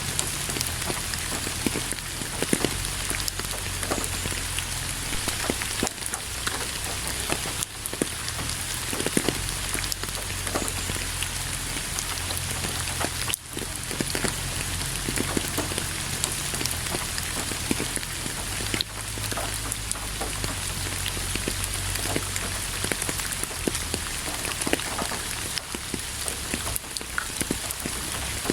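Steady rain falling on a surface: an even hiss of rainfall dotted with many separate drop impacts. The sound drops out for a split second about thirteen seconds in.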